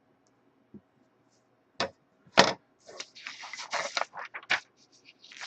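Desk handling noise: two sharp clicks, then a couple of seconds of dense rustling and clicking, then a few scattered clicks.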